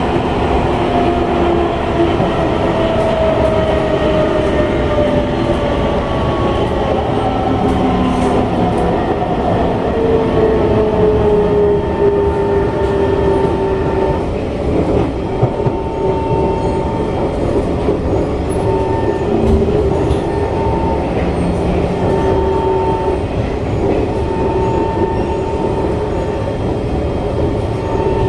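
On-board sound of an SMRT C151 metro train: the traction motors whine as it slows, their pitch falling steadily over the first half, over constant wheel and rail rumble. They then settle into a steadier lower hum with an on-and-off higher tone.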